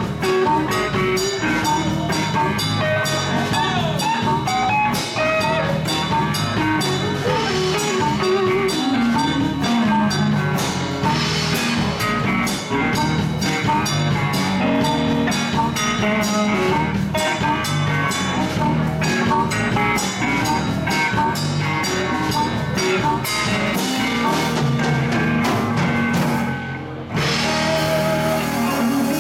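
Live blues band playing at full volume: drum kit keeping a steady beat under electric guitars and bass. The music thins out for a moment near the end, then comes straight back in.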